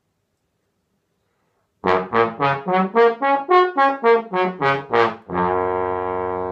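Trombone played solo: about two seconds in, a quick run of about a dozen short, separate notes, roughly four a second, then one long held note.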